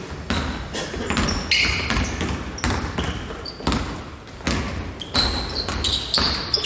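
Basketball being dribbled on a hardwood gym floor, a run of sharp bounces, with short high sneaker squeaks on the boards as players cut.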